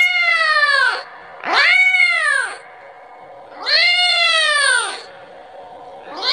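Kitten meowing over and over, calling for its mother and asking for milk: long, loud meows about a second each, pitched up then down, with short pauses between them, the last starting near the end.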